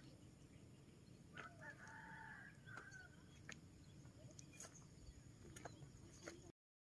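A rooster crowing once, faint, about a second and a half in, a single call lasting about a second and a half. There are a few faint clicks, and the sound drops out to silence just before the end.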